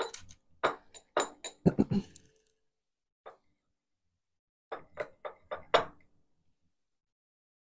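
A long spoon clinking against the inside of a glass as a drink is stirred: a run of sharp, ringing tinks in the first two seconds, then another short run about five seconds in.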